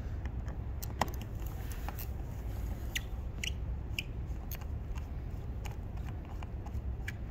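Hand screwdriver backing out the screws that hold an F2 alpine snowboard binding's toe bail, giving scattered small clicks and scrapes, about one a second, over a low steady hum.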